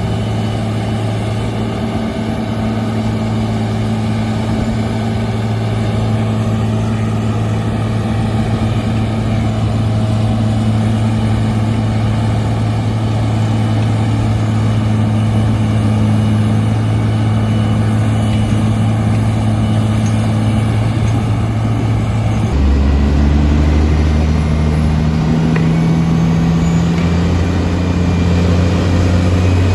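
Heavy diesel engine running steadily. About three-quarters of the way through the sound changes abruptly to a deeper engine note whose pitch shifts.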